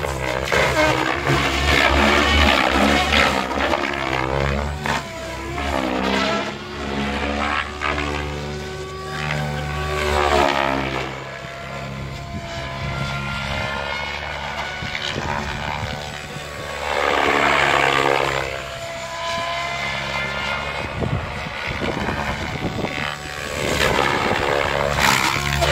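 Spektrum Goblin 700 electric RC helicopter flying aerobatics: its rotor and electric motor, held by the governor at a steady headspeed of 2100 RPM, hum at a constant pitch. The blade whoosh swells and fades every few seconds as the helicopter flips and swings past, loudest about two, ten, seventeen and twenty-five seconds in.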